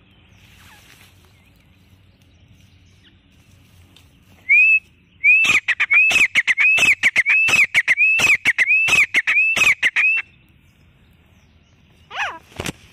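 Grey francolin calling: a loud run of about ten ringing notes, each rising then dipping, roughly two a second for some five seconds, starting about four seconds in. Near the end, a short falling note and a sharp click.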